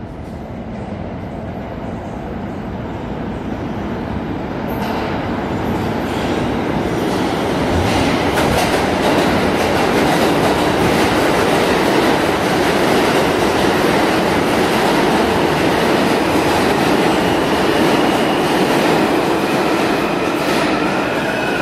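New York City subway train, an R train, running in alongside the platform. Its wheel and rail noise builds over the first several seconds, then holds loud and steady.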